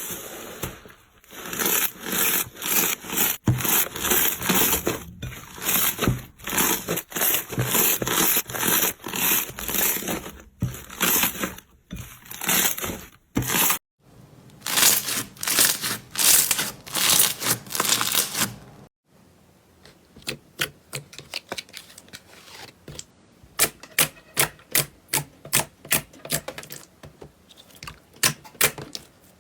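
Slime being squeezed and pressed by hand, making quick repeated crackling squishes, a few every second. The sound changes at cuts about 14 and 19 seconds in; the last stretch is quicker, sharper crunchy clicks.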